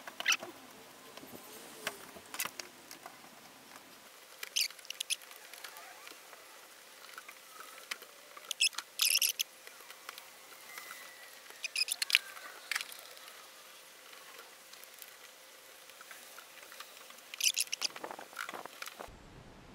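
Short bursts of squeaking and scraping from a rubber windscreen seal being worked into a car's rear window opening, coming in clusters every few seconds with quiet between.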